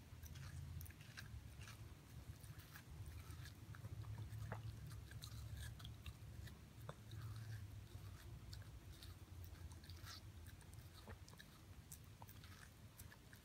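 Shiba Inu puppy biting and chewing watermelon from a hand: faint, irregular crunchy clicks of its mouth on the juicy flesh, over a low steady rumble.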